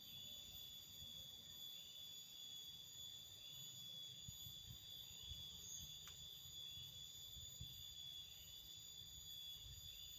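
Near silence: a faint steady high-pitched whine with a low rumble underneath.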